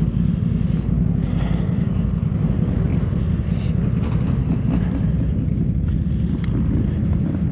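ATV engine running under way, a steady low rumble.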